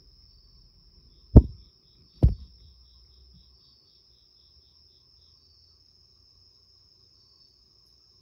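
Two heavy thumps about a second apart as a cat moves off past the phone. Crickets chirp steadily, and a second insect's pulsed chirping runs for about two seconds after the first thump.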